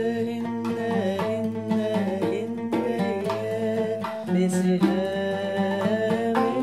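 An Arabic muwashah sung by a woman with a man's voice joining, over a plucked oud and the beat of a riq, a small frame drum with jingles.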